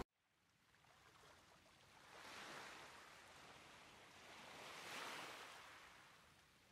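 Near silence, with two faint, soft swells of hiss about two and a half and five seconds in.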